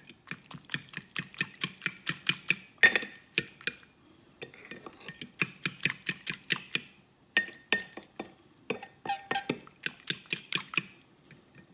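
Metal fork whisking flour and water in a glass baking dish: quick clinks of the tines against the glass, about four to five a second, in runs broken by short pauses.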